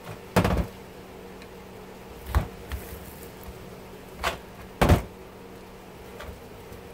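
About four sharp metal knocks and clanks as a hand tool works at a dishwasher motor clamped in a bench vise, the loudest about half a second in and near five seconds in. A faint steady hum lies beneath.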